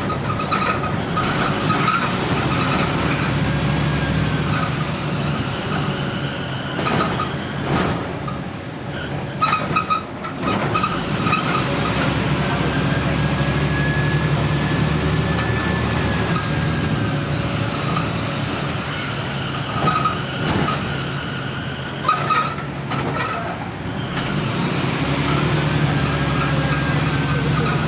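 Volvo B10M bus with Voith automatic gearbox running under way, its engine drone overlaid by a recurring high-pitched screech and a whine that rises and falls slowly several times, with short knocks or hisses in between. The screeching is typical of this bus, which the uploader calls probably the unhealthiest of its type.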